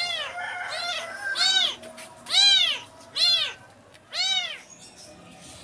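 Kittens mewing loudly and repeatedly: about five high-pitched cries, each rising and then falling, in the first four seconds or so.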